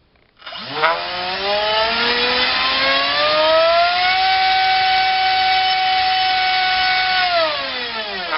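Brushless outrunner RC motor (A2212 2700kv) with a 6x4 propeller spinning up to full throttle with a rising whine, holding a steady high whine for about three seconds, then spooling down with a falling whine near the end. There is a sharp click as it starts. On 3S the motor is loaded about 30 amps over its rated maximum.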